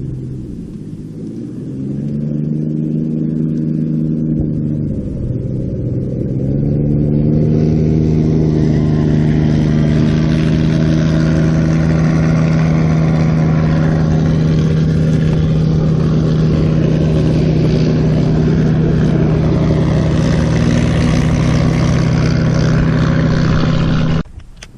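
Small engine running: it eases off twice in the first few seconds, then runs steady at higher revs and cuts off suddenly near the end.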